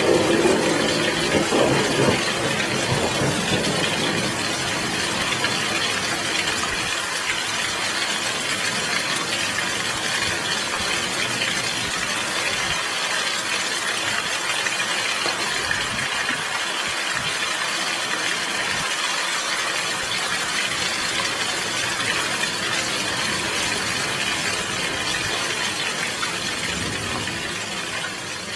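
Heavy rain falling in a steady hiss, with a low rumble of thunder in the first few seconds; the rain begins to fade out near the end.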